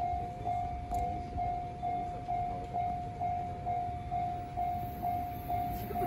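Japanese railway level crossing's electronic warning bell ringing a steady single-pitched "kan-kan" about twice a second, signalling that a train is coming. Under it a train's low rumble grows louder near the end.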